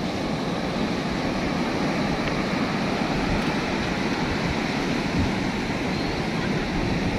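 Rough ocean surf breaking on the beach, a steady, even rush of white water with no distinct crashes standing out.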